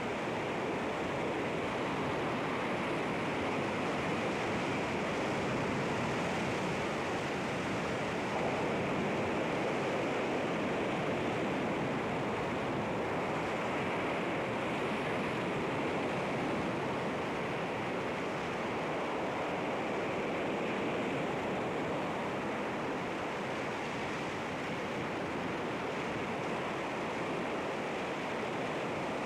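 Sea surf washing against rocks, a steady continuous rush of water with no distinct breaks between waves.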